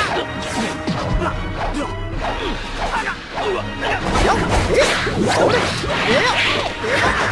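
Animated fight sound effects: a rapid flurry of quick whooshes from punches being thrown, over background music.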